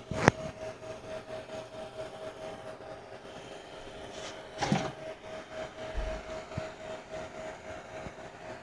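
Model train running on its layout track: a steady, faintly pulsing hum from the small electric motor and wheels. Two sharp clicks stand out, one just after the start and one a little past halfway through.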